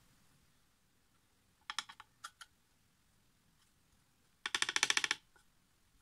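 Hand-turned painting turntable rattling in quick clicks as it is rotated: a brief rattle about two seconds in, then a longer, louder run of very rapid, even clicks about four and a half seconds in.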